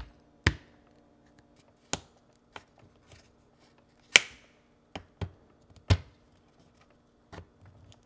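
Irregular sharp clicks and taps of plastic removal tools being pushed in between a plastic dishwasher detergent dispenser and the stainless steel door liner, about ten in all, the loudest about four seconds in.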